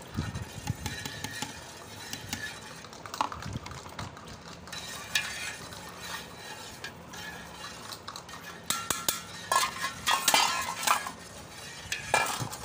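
A steel knife stirring milk in a large aluminium pot, scraping and clinking against the metal, as soaked basil seeds and crushed nuts go in. The clinks come thicker and sharper about nine seconds in and again near the end.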